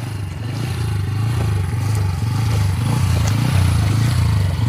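Bajaj Pulsar N160's single-cylinder engine running as the bike wades through a stream, its low note swelling and fading every half second or so as the throttle is worked. The engine keeps running without stalling in the deep water.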